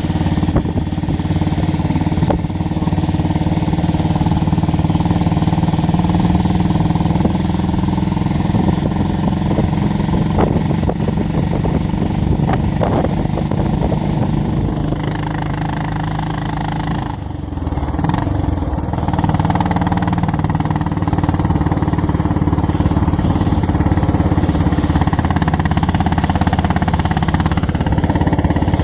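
Motorcycle engine running steadily while riding on a rough road, with a few knocks partway through; the engine drops off briefly a little past the middle, then picks up again.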